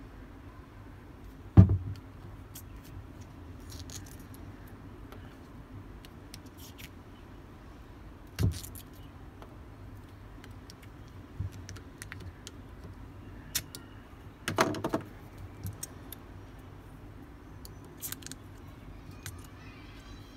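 Metal screwdriver tip clicking and scraping on the plastic top of a sealed lead-acid battery as its rubber vent caps are pried off, with scattered small clicks and three louder knocks, the loudest about a second and a half in.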